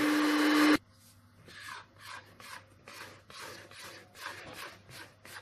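Electric hand mixer beating egg-yolk cake batter, cutting off suddenly less than a second in. Then a plastic bowl scraper scrapes the batter around the mixing bowl in short repeated strokes, about two a second.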